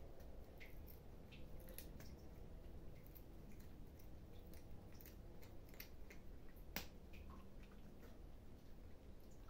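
Cats chewing food: faint, scattered crunches and clicks, with one sharper click about seven seconds in.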